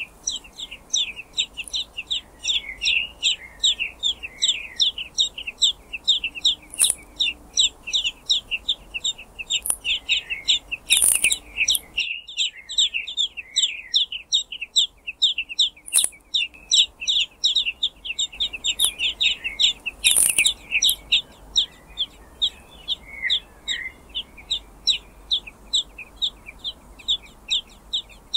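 Common blackbird nestlings begging: a continuous run of short, high chirps that drop in pitch, about four a second, with a few sharp clicks.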